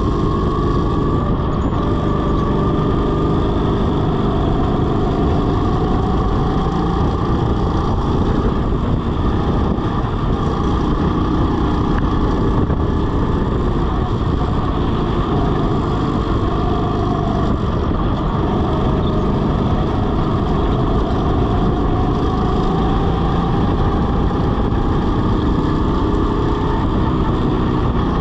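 Go-kart running flat out around a track, its motor note slowly rising and falling with speed through the corners, over a steady dense rushing noise.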